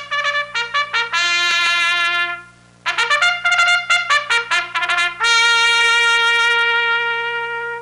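A bugle (corneta) playing a call: a quick run of short notes and a held note, a brief pause, another quick run, then a long final held note that fades out at the end.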